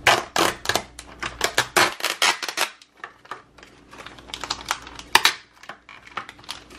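Plastic blister packaging being opened and handled: a quick run of crinkles and clicks for the first two and a half seconds, then scattered clicks, the loudest one about five seconds in.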